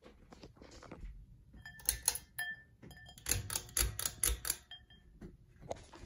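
Ceiling fan rattling and clicking as it runs: irregular clusters of sharp metallic clicks, some ringing briefly, around two seconds in and again, loudest, from about three to four and a half seconds.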